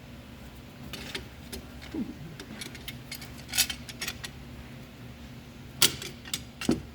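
Scattered metallic clicks and clinks of hand tools and brake caliper hardware being handled, with a sharper knock about six seconds in.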